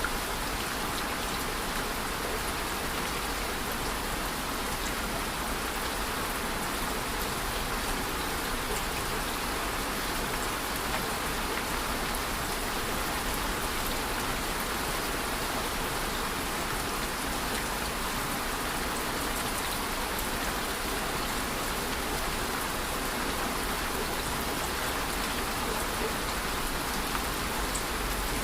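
Steady rain falling, an even hiss of dense drops with scattered small ticks of individual drops hitting a surface.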